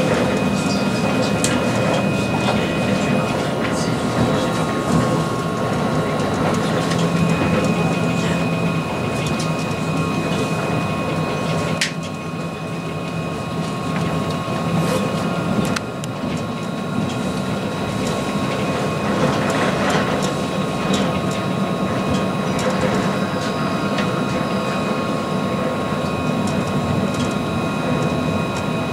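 Montpellier line 1 tram in motion: the steady whine of its electric drive at several pitches over constant running noise, with a sharp click about twelve seconds in.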